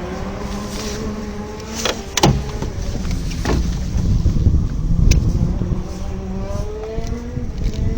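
Racing kart engines running at moderate level, their pitch rising and falling over a steady low rumble, with a few short clicks.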